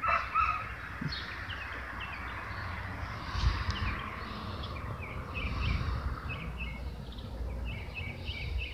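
Birds chirping repeatedly in short high notes, more often in the second half, over a steady low rumble.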